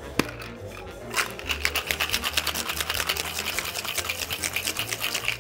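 A sharp metallic knock as the two tins of a cocktail shaker are pressed together to seal, then, about a second in, ice rattling hard inside the metal shaker as the cocktail is shaken, a rapid even rhythm of about eight strikes a second that stops just before the end.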